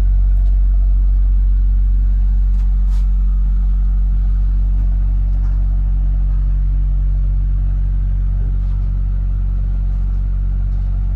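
An engine or motor running steadily, giving a deep, even hum, with a few faint clicks over it.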